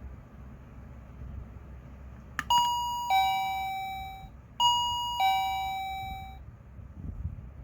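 Electronic doorbell chime playing a two-tone ding-dong twice, each a higher note followed by a lower one that rings and fades. This is the bell sounding again after its button switch and quartz crystal oscillator were replaced.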